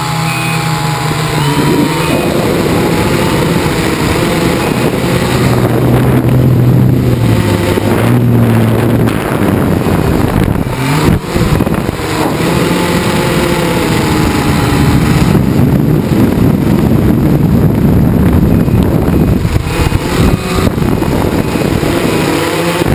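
Quadcopter's electric motors and propellers running loudly, heard from a camera mounted on the frame. The buzz shifts up and down in pitch as the throttle changes through turns.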